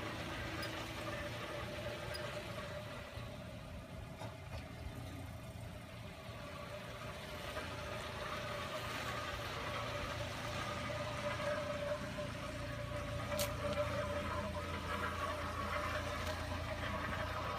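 Rattling noise from the rear passenger-side wheel of a 2012 Hyundai Elantra as the car rolls, a steady tone running under it. It occurs without gas or brake applied, and its cause is unknown to the owner.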